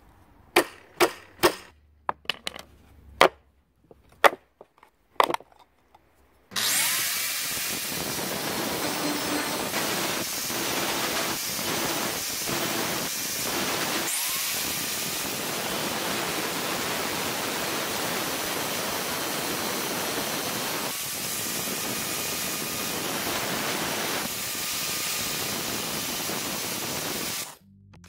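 About ten sharp metal knocks as a homemade nail puller works nail heads in a pallet board, then an angle grinder with an abrasive disc grinding a steel open-end wrench, a loud steady grinding that stops abruptly near the end.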